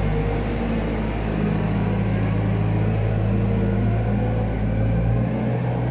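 Weidemann compact wheel loader's engine running steadily as it pulls a harrow across arena sand.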